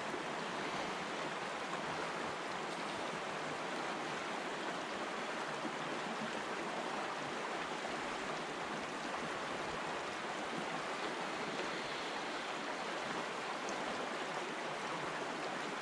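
The Similkameen River flowing past the shore: a steady, unbroken sound of running water.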